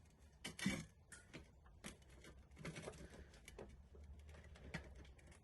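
Faint tool-handling noises from a wrench working on a rusted bicycle freewheel: a few soft clicks and knocks over a low hum, the loudest about half a second in.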